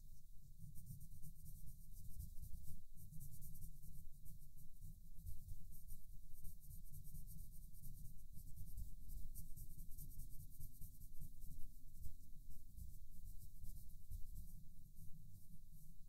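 Colored pencil shading on paper, close to the microphone: a steady run of quick back-and-forth scratchy strokes as an area of the mandala is filled in.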